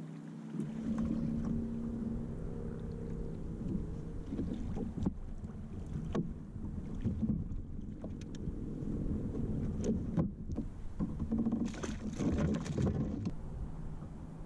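Wind buffeting the microphone over a steady low hum, with scattered knocks and rattles of gear on a fishing kayak. The busiest run of knocks comes near the end.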